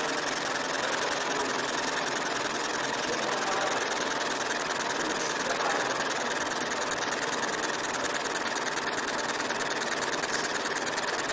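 Fiber laser marking machine engraving an MDF bowl: a steady hiss that, from about four seconds in, takes on a fast, even pulsing of about six or seven beats a second.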